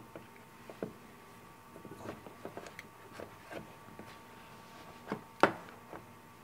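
Irregular metal clicks and clinks of a wrench working a quick-connect coupler on an air-hose end, with one sharp, louder clink about five seconds in.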